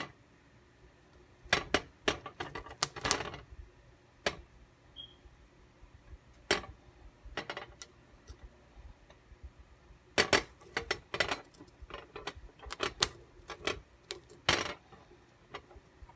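Ear of sweet corn roasting directly on an electric stove's coil burner: irregular sharp clicks, crackles and clinks coming in clusters, busiest about a second and a half in and again from about ten to fifteen seconds.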